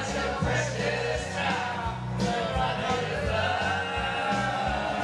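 Several amateur voices singing together over a country karaoke backing track with a steady bass line.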